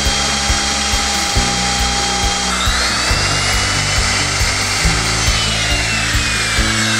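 Makita plunge router running as its bit cuts lettering into a strip of hardwood, a loud steady rush with a high whine that rises and falls slightly in pitch. Background music with a steady beat plays underneath.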